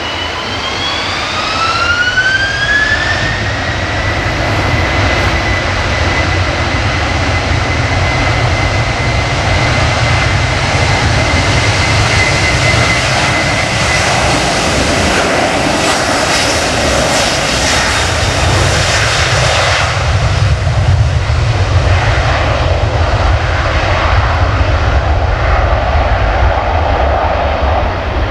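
Airbus A330-200's twin jet engines spooling up to takeoff thrust: a whine rising over the first few seconds, then held steady over a deep rumble during the takeoff roll. Once the airliner has passed, the whine fades into a rougher jet roar heading away.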